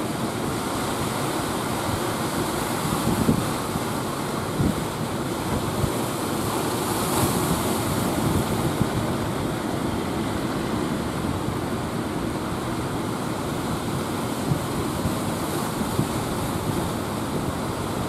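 Sea surf washing and breaking in a steady rushing noise, with wind buffeting the microphone in a few brief low thumps.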